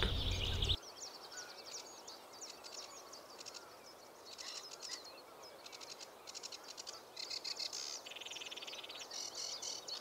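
Sedge warbler singing its busy, restless song: a fast, unbroken chatter of quick high notes, with a buzzy trill about eight seconds in.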